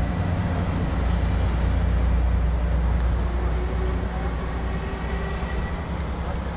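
A train pulling away: a low, steady rumble of engine and wheels that slowly fades as it draws off.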